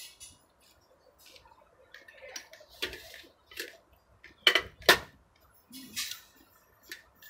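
Spoon and cutlery clinking against a small bowl and a metal serving platter: a scatter of sharp clinks, the loudest two in quick succession about four and a half seconds in.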